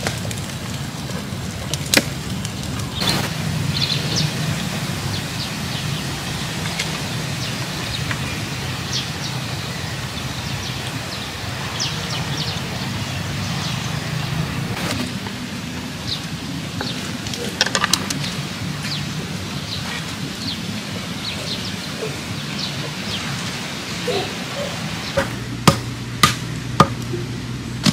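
Small open wood fire crackling, then scattered clicks and taps of bamboo skewers being handled, over a steady low background hum. The sharpest taps come close together near the end.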